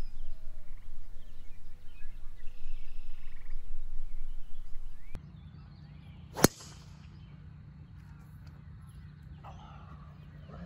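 A driver striking a golf ball off the tee: a single sharp crack about six and a half seconds in.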